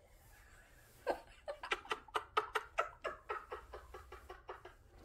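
Giggling: a run of quick, short laughs, about five a second, starting about a second in and fading toward the end.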